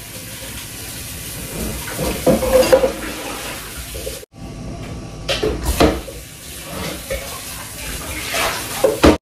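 Kitchen tap running into a metal cooking pot in the sink as parboiled meat is rinsed of its oily stock, with several clanks of the pot against the sink. The sound cuts out for a moment near the middle.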